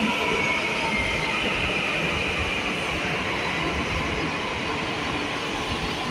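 Delhi Metro train running past the platform: a steady rumble of wheels on rail, with a faint high whine that dips slightly in pitch about a second in.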